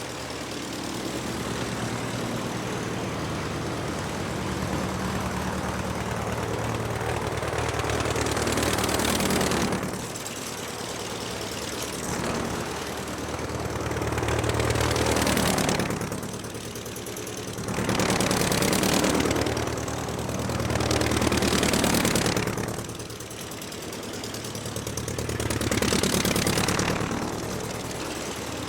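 Aircraft engine running, its rushing noise swelling and fading every few seconds over a steady low drone.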